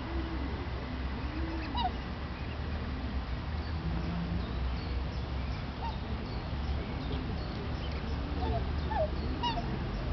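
Black swans giving short, low calls that rise and fall in pitch, one every second or two. Brief high peeps from the cygnets are scattered among them.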